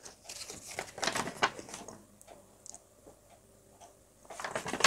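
Light handling noises: a folded paper sheet rustling and being put down, with scattered soft clicks and taps, busiest in the first two seconds and again near the end.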